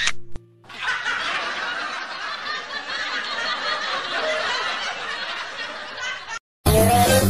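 A crowd laughing, a dense laugh track that runs for about five seconds and cuts off abruptly; music starts just after.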